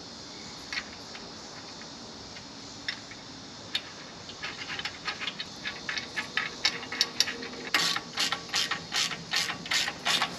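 Socket ratchet wrench clicking as bolts are tightened: a few scattered clicks at first, then from about halfway a steady run of ratchet clicks, about three a second, louder near the end.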